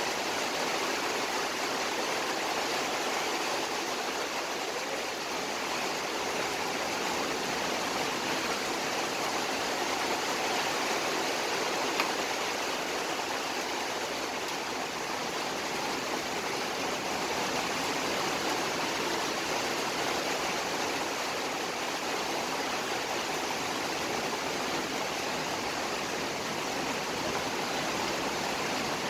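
Sugar syrup at a rolling boil in a wide metal pan with rosogolla (chhena) balls cooking in it, bubbling and frothing with a steady rushing hiss.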